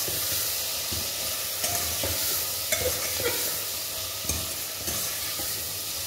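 Cauliflower and peas sizzling in hot oil in a pressure cooker, a steady sizzle while a metal ladle stirs them, with occasional short clinks and scrapes of the ladle against the pot.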